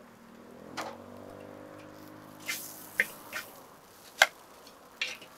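Food being prepared with utensils: about seven short sharp clicks and wet squelches at irregular spacing, the loudest about three and four seconds in, as thick sauce is handled.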